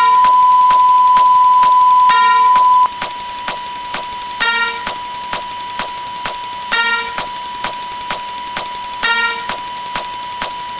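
Layered electronic sound effects in an alarm-like drone of steady beeping tones, with a steady ticking underneath. A short chime-like beep repeats about every two seconds. A louder held beep sounds for the first three seconds or so.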